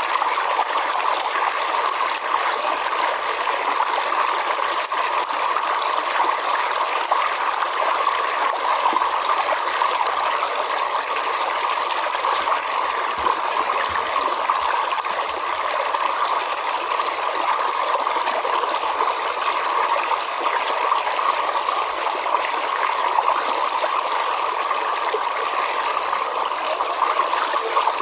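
River water flowing, a steady unbroken rush of water with no pauses or separate splashes.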